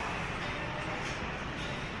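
Steady mechanical noise of a truck factory's test line, an even rumble and hiss without a clear beat or tone.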